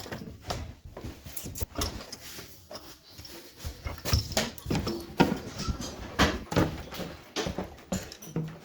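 Irregular knocks, clicks and clatter of tools and metal engine parts being handled during engine disassembly.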